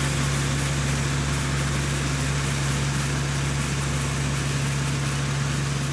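Farm machine's engine running steadily at constant speed: a low, even hum with a strong steady drone.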